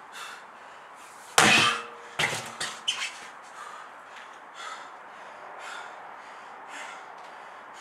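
A 34 kg sledgehammer slammed down onto a tyre: one heavy strike about a second and a half in with a brief ring, followed by a few smaller knocks as the hammer settles.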